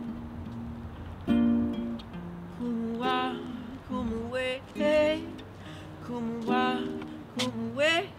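Nylon-string classical guitar being played, with a wordless singing voice joining in from about three seconds in.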